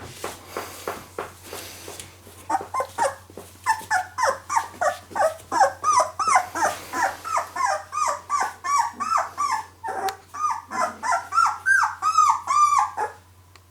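Two-week-old Labrador puppy squeaking and whimpering, a rapid string of short, high, rising-and-falling cries about three a second, which sets in after a couple of seconds of soft clicking.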